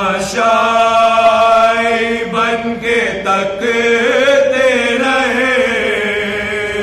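Unaccompanied male voice chanting an Urdu marsiya (elegy) in long held notes that waver and bend in pitch.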